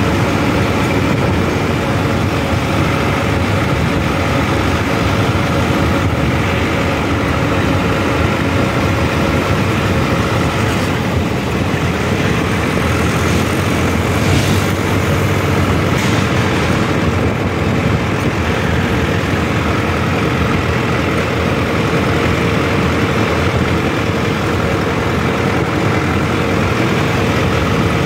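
Mahindra Arjun 605 DI tractor's turbocharged diesel engine running steadily as the tractor drives along a road, heard from the driver's seat.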